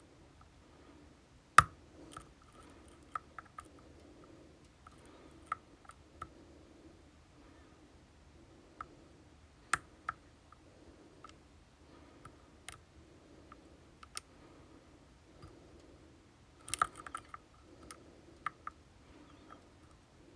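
Scattered small sharp clicks and taps of metal lock picks working in an Assa Twin Combi 4800 lock cylinder, the loudest about a second and a half in and a quick cluster near the end.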